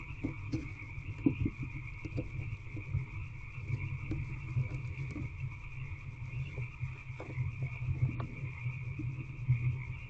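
A steady high-pitched chorus of night animals over a low hum, with scattered soft scratches and knocks as the barn owl shifts and stretches on the wood shavings of the nest box, the sharpest about a second in.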